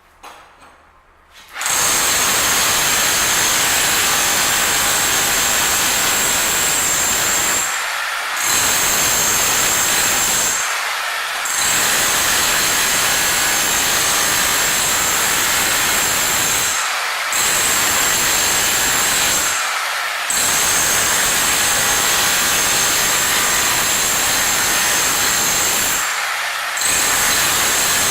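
Bauer rotary hammer in chisel mode, driving a 4-inch-wide SDS chisel scraper that rips old thinset off a concrete floor. It starts about two seconds in and runs loudly and steadily, easing off briefly five times before running on.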